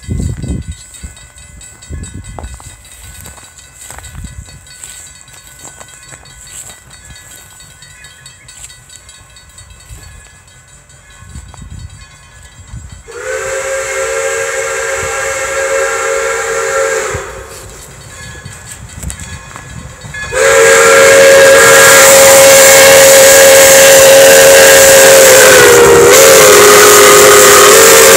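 The steam whistle of Pere Marquette 1225, a 2-8-4 Berkshire locomotive, blows two long blasts as the train approaches: one about 13 seconds in, lasting some four seconds, then a louder one from about 20 seconds in that is still sounding at the end. Each blast is a chord of several notes at once, and the second wavers briefly in pitch. Before the first blast the approaching train is heard more quietly.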